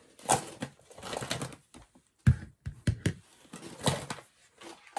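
Fiskars scissors being handled and set down on a hard surface: a series of irregular clicks and knocks, the sharpest about two seconds in.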